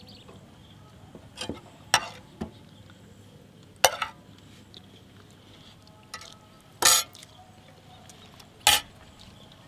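Steel spoons clinking and scraping against a bowl while scooping out thick dragon fruit jam: about half a dozen separate sharp clinks, scattered a second or two apart, the two near the end a little longer.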